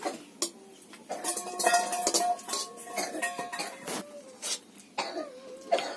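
A steel spoon clinking and scraping against a steel plate and bowl as pieces of jackfruit are tipped from one vessel into the other. It makes a run of irregular clinks and knocks, and some strikes ring briefly in the first half.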